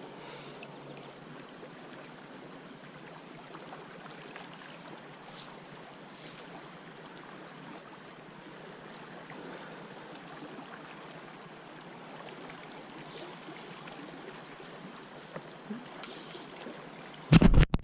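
Steady rush of river water flowing past the bank, with a single loud knock near the end.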